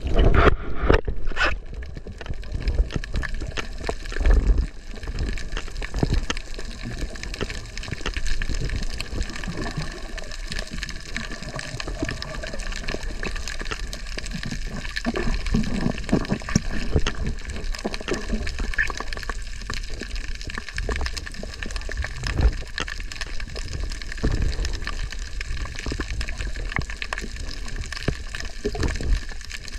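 Underwater ambience picked up by a submerged camera: water sloshing and gurgling against the housing, with many small clicks and a few louder low thumps, the strongest in the first couple of seconds.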